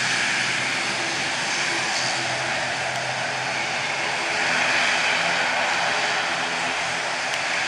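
ATR 72-600's twin turboprop engines running at taxi power: a steady engine hiss and whine over a low propeller drone. The sound swells a little about halfway through as the aircraft turns away.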